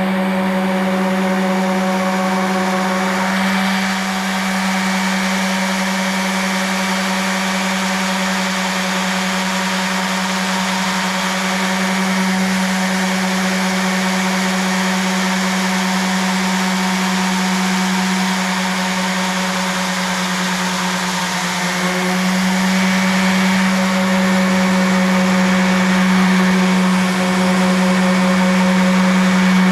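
Electric sander running steadily: a constant motor hum over a rushing noise, growing a little louder about two-thirds of the way through.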